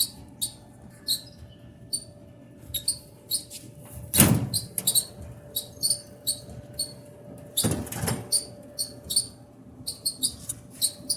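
Kenmore Elite gas dryer running with its drum turning, giving short high squeaks two or three times a second over a faint steady hum; the squeal comes from the back of the machine, which the technician takes for a worn drum roller. Two heavier thumps sound about four and eight seconds in.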